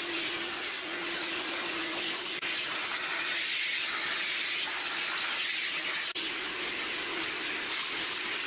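A steady rush of air, the cleanup of brass swarf from the mill-drill's vise and table, with a faint low hum underneath. It holds steady with two momentary dips.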